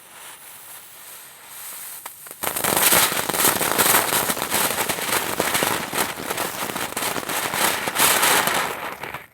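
Firework fountain spraying with a quiet hiss, then, about two and a half seconds in, breaking into loud, dense crackling that dies away near the end.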